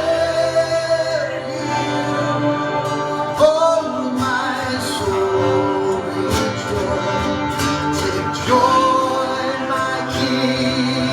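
Live worship music: sustained singing, held notes that glide between pitches, over guitar and a steady low chord.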